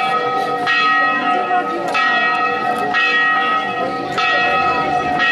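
Church bell tolling slowly, one strike about every second and a bit, each stroke ringing on into the next.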